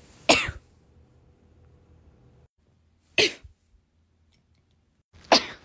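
A person sneezing three times, each a short sudden burst, a few seconds apart.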